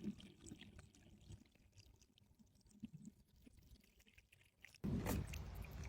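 Near silence at first, then about five seconds in a steady splash of water starts abruptly: a small solar-powered fountain spraying water into a bird bath bowl.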